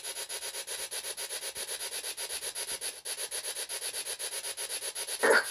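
Ghost-box sweep from the GhostTube app: hissing static chopped into a fast, even pulse. There is a brief louder blip near the end.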